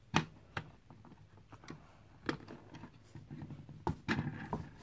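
Plastic Lego pieces clicking and knocking as a propeller is pressed onto a model plane's wing: several sharp clicks, the loudest right at the start and more about two and four seconds in.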